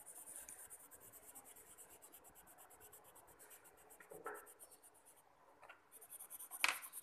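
Colored pencil shading back and forth on paper in quick, even scratchy strokes, blending green coloring. The strokes pause briefly about five seconds in. A single sharp tap near the end is the loudest sound.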